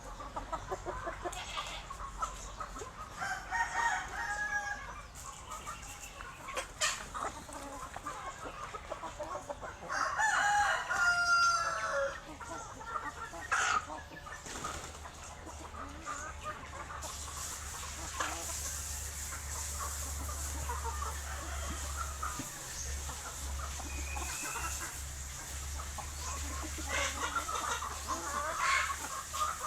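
Chickens clucking, with a rooster crowing, loudest about ten seconds in; a low steady hum runs underneath in the second half.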